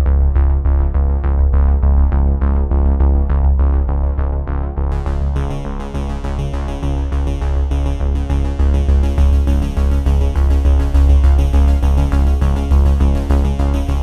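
Electronic background music: synthesizer over a strong bass with a steady beat, with higher percussion coming in about five seconds in.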